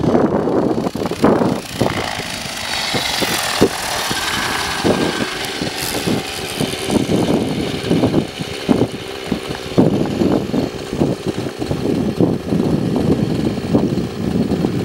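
Align 50 Hyper nitro glow engine of an Align T-Rex 600N RC helicopter running with its main rotor spinning, settling into an uneven, choppy idle.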